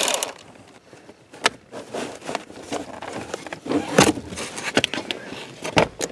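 A loud whirring run, likely a power driver on a panel bolt, cuts off right at the start; then scattered clicks and light knocks of tools and parts being handled.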